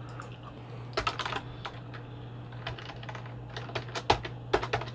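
Typing on a computer keyboard: irregular runs of quick key clicks, starting about a second in, over a steady low hum.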